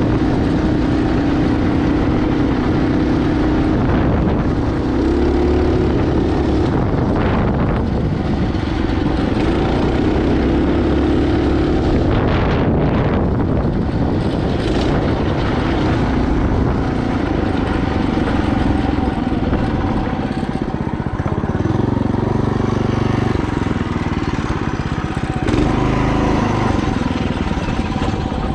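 Mini bike's small engine running under way through its torque converter, its pitch rising and falling several times as the throttle is opened and eased off.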